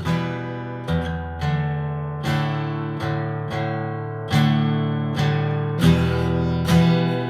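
Acoustic guitar strummed on its own, one chord stroke about every second, each left to ring, with the chord changing several times.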